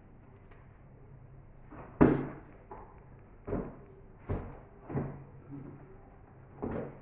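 Five sharp knocks and thuds of things being handled. The first, about two seconds in, is the loudest, and four more follow at uneven gaps over the next five seconds.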